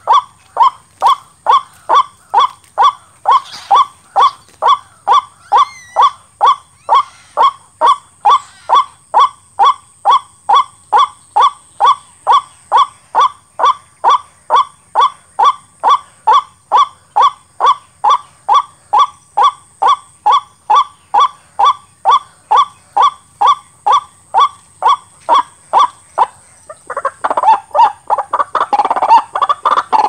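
White-breasted waterhen (ruak-ruak) call, the lure call used to draw the birds to the snare, repeated in a very even rhythm of about two calls a second. Near the end the even calling breaks off and a louder, more jumbled stretch of calling takes over.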